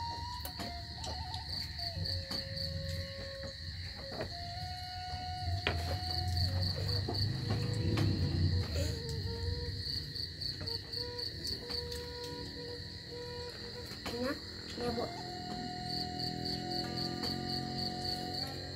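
Crickets chirping in a steady high-pitched chorus, with a pulsing trill that swells every four or five seconds.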